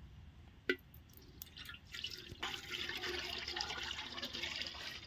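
Groundnut oil poured from a container into a large frying wok: a single knock about a second in, then a steady splashing pour from about two and a half seconds in.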